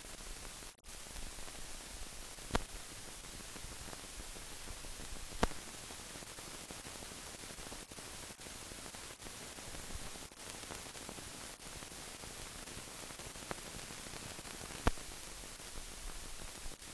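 Steady hiss of an old newsreel film soundtrack, with a few sharp clicks and a brief dropout, and no other recorded sound.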